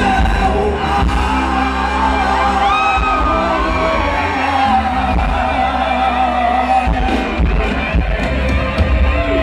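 Rock band playing live through a PA: electric guitars, bass and drums, with singing and yells over the music.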